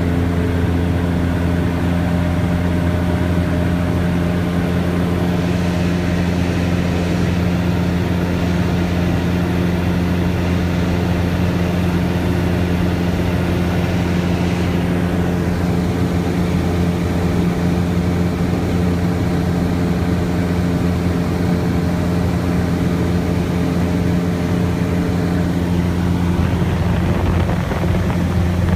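Piston engine and propeller of a single-engine high-wing light airplane in flight, heard inside the cabin as a loud, steady drone.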